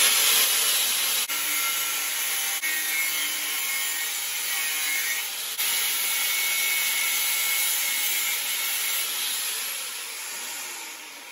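Angle grinder with a cutting disc plunging straight through a metal tube to cut a 45-degree angle, a steady grind that fades out near the end.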